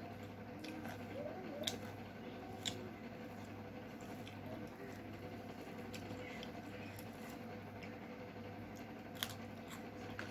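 Close-miked mouth sounds of someone eating chicken curry and rice: soft wet chewing and smacking, with three sharp clicks, over a steady low hum.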